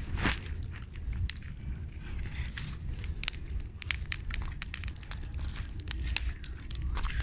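Bonfire crackling, with many irregular sharp pops and snaps.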